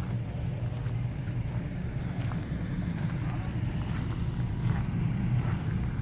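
Wind buffeting the microphone: a low, steady, fluttering rumble, with a few faint ticks.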